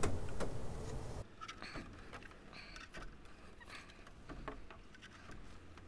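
Faint scattered rustling and light clicks as plants are handled and set back into the 3D-printed strawberry tower, after a louder rustle in the first second that fades out.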